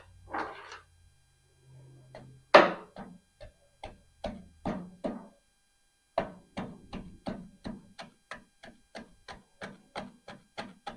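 A hand tool working caked grease and mud off a car's underside in short, sharp strokes. A few scattered strokes come first, then an even run of about two a second through the second half.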